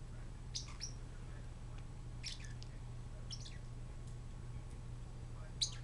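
Parrotlets giving short, high chirps, a handful of them spread through, the last near the end, over a low steady hum.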